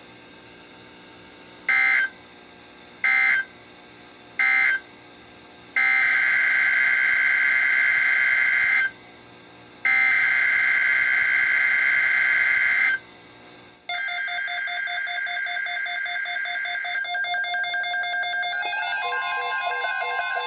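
NOAA Weather Radio SAME digital data tones, a harsh two-pitch warble. Three short bursts mark the end of the flash flood watch message, then two longer bursts open the next alert. About 14 seconds in, weather alert radios start sounding their electronic alarm tones together, a busy beeping that changes pitch.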